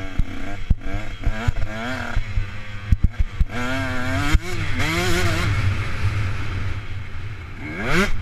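Motocross dirt bike engine revving up and down as the throttle is worked on the track, with a steady low wind rumble on the helmet-mounted microphone. Sharp knocks come in the first few seconds, and a quick rising rev comes near the end.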